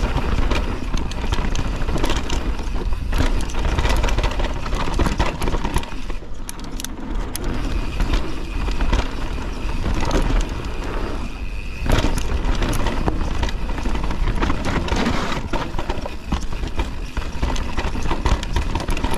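Canyon Torque full-suspension mountain bike descending a dirt freeride trail: tyres rolling over dirt and stones and the bike clattering and rattling over bumps, with a constant rumble of wind on the camera. It eases briefly about six seconds in, then picks up again.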